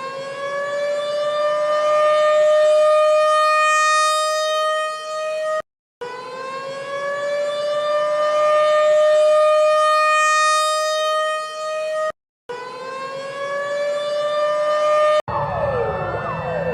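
A civil defense siren holding one steady, loud tone, which rises briefly at the start of each of three segments that cut off abruptly. Shortly before the end it switches to several sirens wailing up and down over one another.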